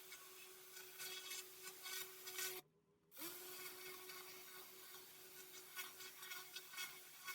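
Pressure washer spray blasting paving: a steady hissing jet over the constant hum of the machine. About two and a half seconds in, the sound cuts out for half a second, then resumes, the hum sliding back up to pitch.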